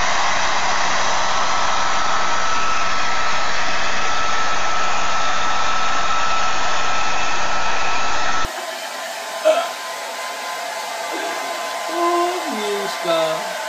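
Handheld electric hair dryer running steadily: an even rush of air with a high whine. About eight seconds in it cuts to a quieter hair dryer blowing over a pug's fur, with a few short sliding sounds near the end.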